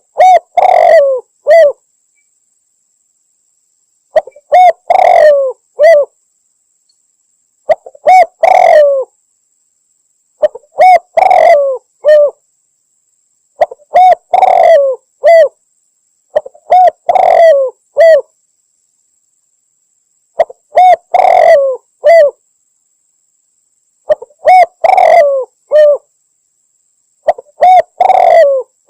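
Spotted dove cooing: short phrases of three or four coos, repeated about every three to four seconds with silent gaps between. This is a looped lure recording of a female dove's call, used by hunters to draw in males.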